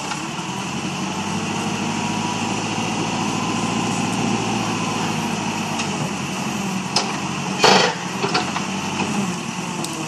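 Backhoe loader's diesel engine running steadily while its backhoe bucket works at a tree stump, with a short louder burst of noise about eight seconds in.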